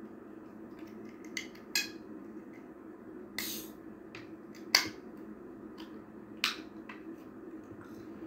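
Plastic drinking straw and aluminium soda can being handled: scattered light clicks and one short scrape about three and a half seconds in, with the sharpest click near the middle, over a steady low hum.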